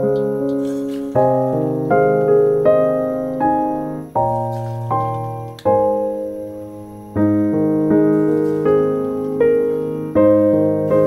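Background piano music: chords struck every second or so, each left to die away before the next.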